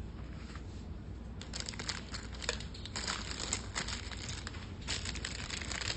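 Clear plastic zip bag crinkling as it is picked up and handled, in a run of irregular crackly rustles that starts about a second and a half in.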